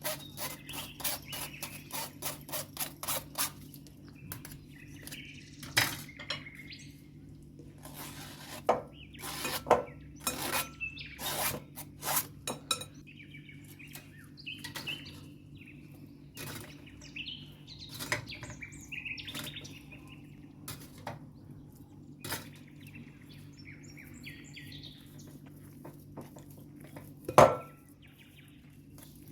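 Kitchen utensils clinking and tapping against dishes: a quick, even run of taps about four a second for the first three or four seconds, then scattered clinks, with one loud knock near the end. Birds chirp now and then in the background over a steady low hum.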